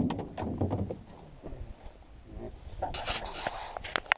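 Handling noise in a boat: rubbing and scraping with scattered clicks and knocks, and a short loud thump right at the start, as a freshly landed walleye and the tackle are handled.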